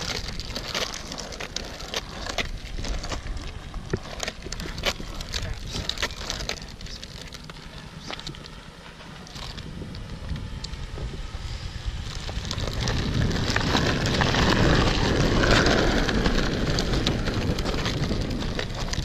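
Homemade 2x4 wooden skateboard on coarse asphalt: scattered clacks and knocks of the board through the first half, then the wheels rolling with a louder, rough grinding noise that builds about two-thirds of the way in.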